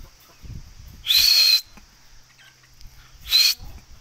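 Young Aseel chickens giving two short, shrill, high-pitched calls, one about a second in and a shorter one near the end.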